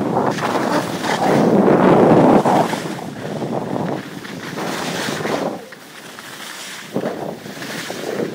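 Skis sliding over the snow with air rushing over the microphone as the skier moves downhill: a steady rushing noise, loudest between about one and two and a half seconds in, and dropping away about five and a half seconds in.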